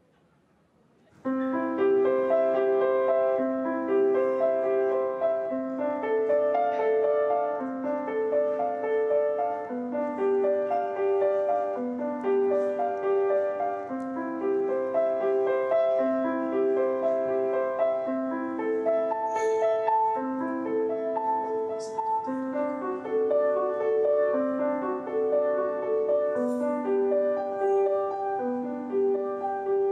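Piano playing a steady, flowing piece of repeated broken chords with a melody on top, starting suddenly about a second in.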